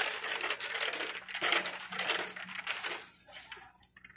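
Plastic rustling and rattling in irregular crackles, as wrapped goods and a plastic shopping basket are handled, dying away near the end over a faint steady low hum.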